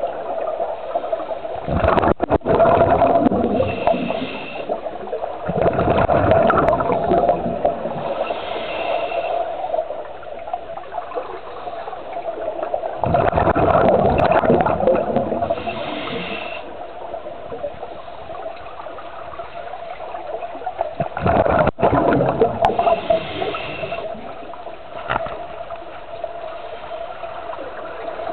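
Underwater scuba breathing: regulator exhaust bubbles gurgle in loud bursts every several seconds. Shorter hisses fall between the bursts, over a steady hum.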